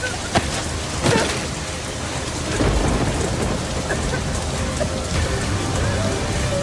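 Heavy rain pouring down and splashing on the ground, with two brief sharp hits in the first second and a low rumble of thunder building from about two and a half seconds in.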